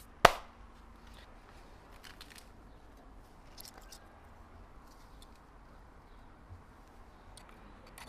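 A single sharp knock about a quarter second in, loud and quickly fading. After it come only faint scattered ticks over a quiet low hum.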